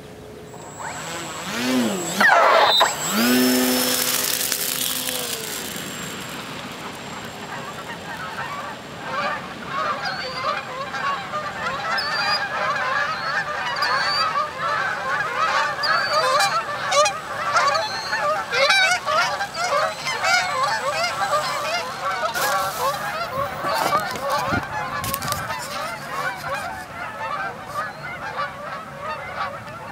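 A flock of geese honking continuously as they fly off, many short overlapping calls. About two seconds in, a loud sweeping whine rises and then falls away.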